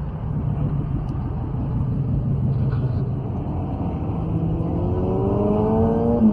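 Car engine rumbling, then revving up over the last two seconds or so, its pitch climbing steadily before dropping off sharply at the end, as in an acceleration followed by a shift or lift off the throttle.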